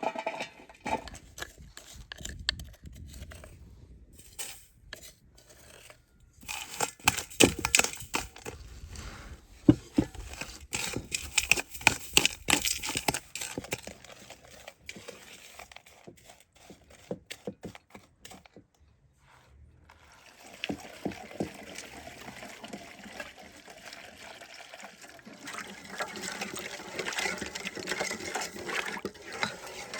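Rapid irregular clicks, crackles and knocks of handling or crunching material. After a short pause about two-thirds of the way in, they give way to a steady rush of running or splashing water.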